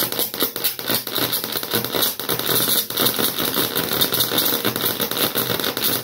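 High-voltage arc from a flyback transformer's output leads: a dense, steady crackling buzz that starts suddenly as the power supply is connected. The lead tips are set a little apart, and the discharge jumps the gap between them.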